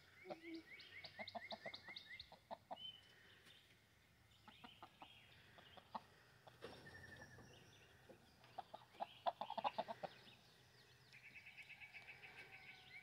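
Chickens clucking quietly as they forage, in two bouts of quick clucks. A fast, evenly repeated chirping trill from a small bird or insect runs in the background near the start and again near the end.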